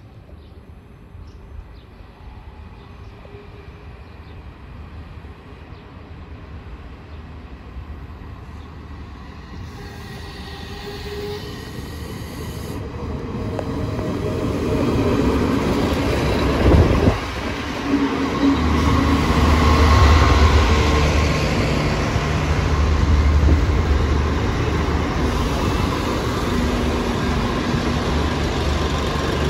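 Renfe class 592 diesel multiple unit approaching, its rumble growing steadily louder over about fifteen seconds, with one sharp clank about seventeen seconds in. Then its diesel engines run with a steady low drone as it draws alongside.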